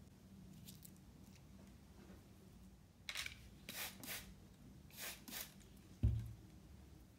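Plastic trigger spray bottle misting water onto clay: five short sprays, one and then two quick pairs, about half a second to a second apart. About a second after the last spray comes a single low thump.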